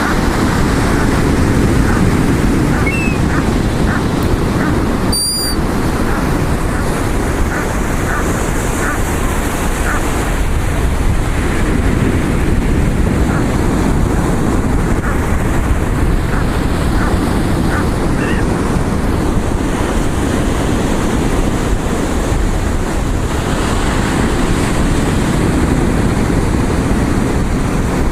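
Ocean surf washing steadily on the shore, with wind buffeting the microphone. A few brief high chirps sound over it, and there is a sharp click about five seconds in.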